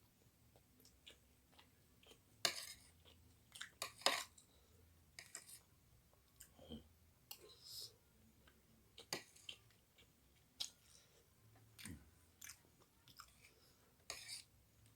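A person chewing and eating fried rice close to the microphone, with irregular short wet smacks and clicks of the mouth.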